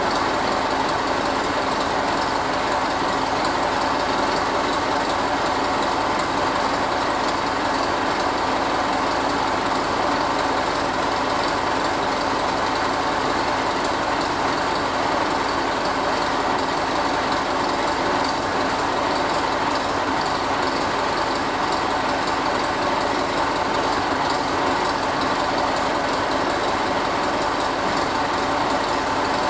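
Leyland 270 tractor's four-cylinder diesel engine running steadily at idle, freshly back together after an engine repair.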